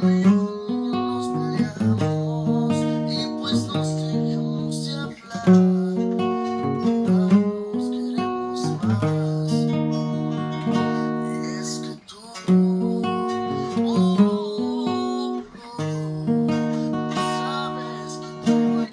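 Solo acoustic guitar playing the chords of a song, moving between D♯ minor and F♯. It stops abruptly at the end.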